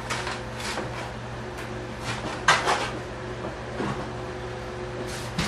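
A few light clicks and knocks of small parts and tools being picked up and set down on a workbench, the loudest about two and a half seconds in, over a steady low hum.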